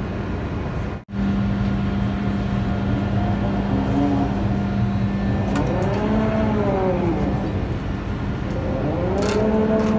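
Steady hum of a ship's deck machinery with wind on the microphone while a rescue boat is lowered on its davit, broken by a brief dropout about a second in. Two drawn-out tones rise and then fall in pitch, around six and nine seconds in.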